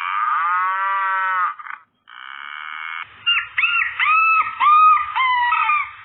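A rooster crowing once, a long call that rises and falls, followed by a quick run of short, high, hooked calls from fowl.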